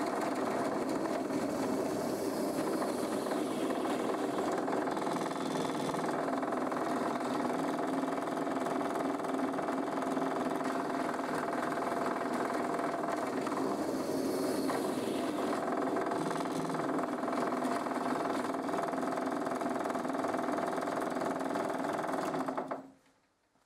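Drill press motor running with a steady hum as a wide bit bores holes into a pumpkin. The sound cuts off abruptly near the end.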